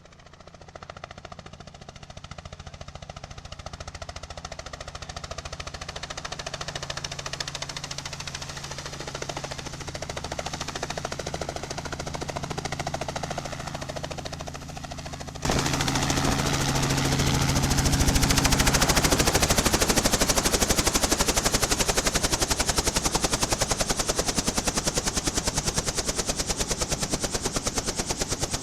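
Helicopter running: a steady engine hum grows louder over the first half. After a sudden jump about halfway through, the rotor blades beat in a fast, even chop.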